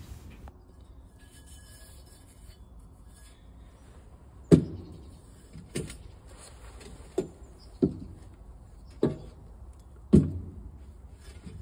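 Steel pieces knocking against a steel sheet as they are picked up and set down by hand: six separate knocks, each with a short ring. The first comes about four and a half seconds in, and the rest follow roughly a second apart.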